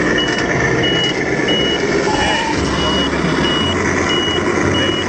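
Reverse-warning beeper of a radio-controlled truck set's sound system, giving short, high, evenly spaced beeps about one and a half a second, over a low pulsing hum.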